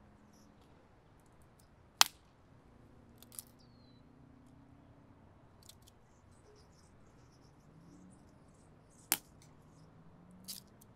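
Stick fire burning, with four sharp pops and faint crackling; the loudest pop comes about two seconds in and another about nine seconds in.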